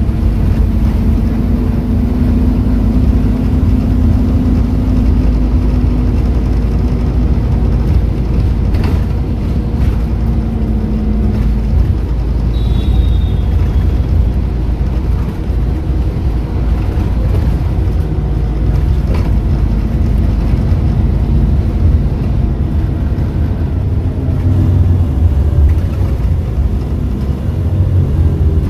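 Scania N230UD double-decker bus under way, heard from the passenger saloon: the engine and ZF automatic gearbox running with a deep rumble and road noise, and a steady tone that fades out about twelve seconds in. The low rumble swells near the end.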